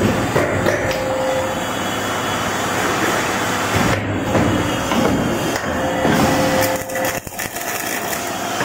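Automatic double J hook making and welding machine for 10 mm wire running: a steady mechanical clatter with a few sharper knocks about four seconds in and again near the end.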